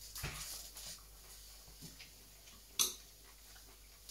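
Chopsticks clicking and scraping against a ceramic bowl while eating, with one sharp click a little under three seconds in.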